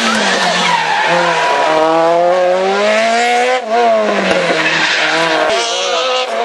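Rally car engine revving hard through a tight tarmac hairpin and accelerating away, with tyre squeal. The engine's pitch climbs, drops sharply about three and a half seconds in at a gear change or lift, then climbs again.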